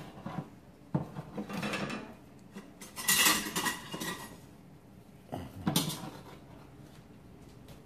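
Metal spoon clattering and scraping in a wok while scooping out stir-fried meat: several short clatters, the loudest about three seconds in with a brief metallic ring.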